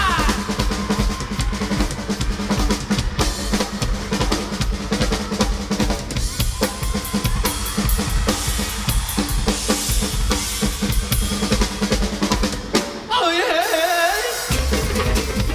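Dance music track with a busy, driving drum-kit beat of kick, snare and rimshots over a steady bass line. About 13 s in, the bass and kick drop out for a moment under a wavering high pitched line, then the full beat comes back.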